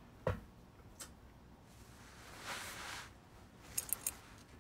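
Quiet handling noises of small objects: a sharp click, a soft scraping rustle about halfway through, then a quick run of light ticks near the end.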